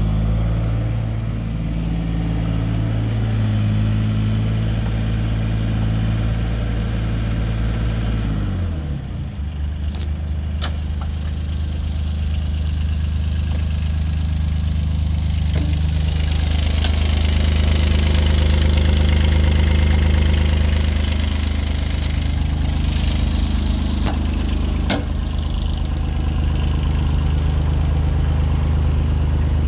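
Takeuchi TB016 mini excavator's diesel engine running at raised revs, then dropping to a steady idle about eight or nine seconds in. A few sharp clicks come over the idle later on.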